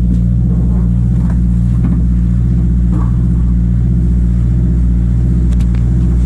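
Fishing boat's diesel engine running steadily with a low drone, with a few light knocks and rattles as steel-framed crab pots are moved on deck.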